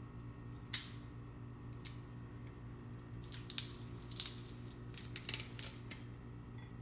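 Handheld garlic press being worked: one sharp click about a second in, then a run of small clicks and scrapes as a garlic clove is squeezed through the press and the pressed garlic is scraped off.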